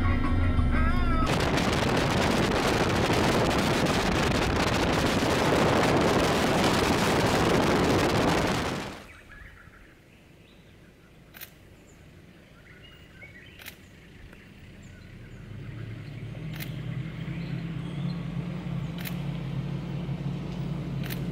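Music stops about a second in and gives way to a loud, steady rushing noise that cuts off suddenly after about nine seconds. After a few quiet seconds with several sharp clicks, a 4x4's engine hums in the distance and grows louder as it comes closer on a dirt track.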